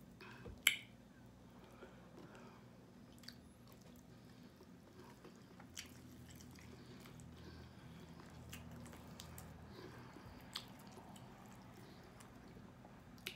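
Quiet eating sounds: chewing and the tearing apart of roasted chicken wings by hand, with scattered wet clicks and smacks, the sharpest a little under a second in. A steady low hum runs underneath.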